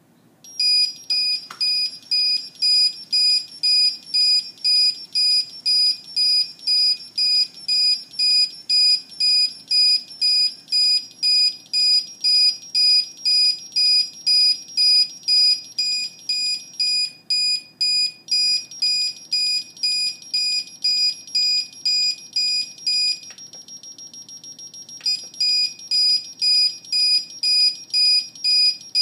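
Gas leak alarm sounding when the detector senses gas: a loud, high-pitched electronic beeping, about two beeps a second. Near the end it gives way to a quieter steady sound for about two seconds, then the beeping starts again.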